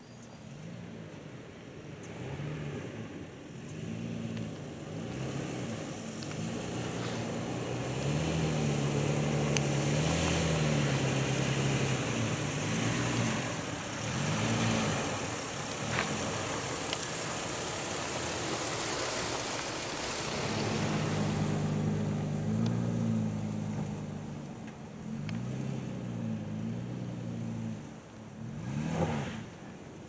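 Lifted 2008 Toyota Tacoma 4x4 pickup's engine revving up and falling back again and again as it drives a dirt trail, heard from outside the truck, with a rush of tyre and gravel noise from about 8 to 20 seconds in. Near the end the engine revs up sharply once.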